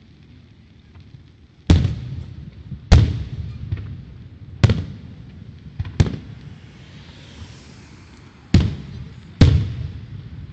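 Aerial fireworks shells bursting: six loud booms spaced a second or two apart, each dying away in an echoing tail, with a few smaller pops between them and a faint hiss in the lull between the fourth and fifth.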